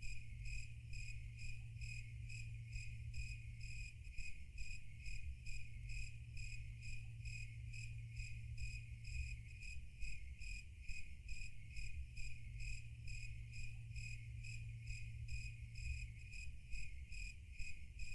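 Crickets chirping in an even, regular rhythm of about three chirps a second, over a steady low hum.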